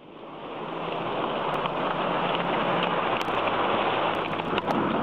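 Hailstorm: a dense, steady rush of falling hail with scattered sharp clicks of stones striking, fading in over the first second.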